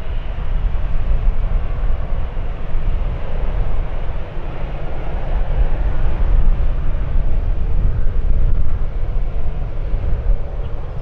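Wind buffeting the microphone in a heavy, gusting rumble, over the steady rushing noise of aircraft engines.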